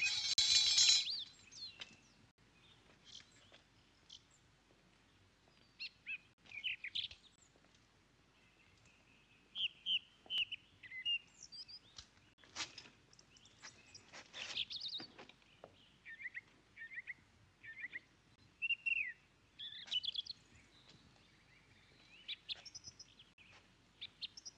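Small birds chirping in scattered short calls, with a few faint knocks between them. A bright clinking, ringing sound cuts off about a second in.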